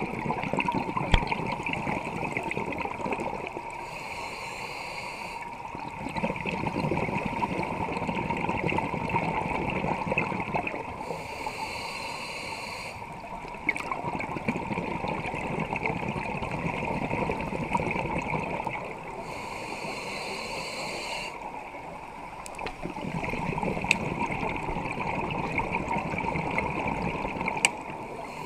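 Scuba regulator breathing heard underwater: about four slow breaths, each a few seconds of bubbling exhalation followed by a quieter hissing inhalation, over a steady faint hum.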